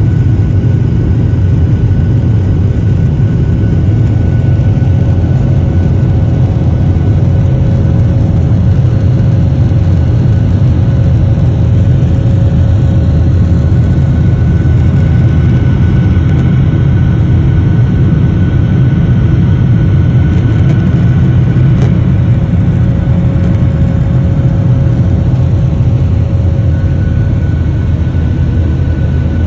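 Steady loud roar of a jet airliner's engines at climb power, heard inside the passenger cabin, with a faint steady whine over it.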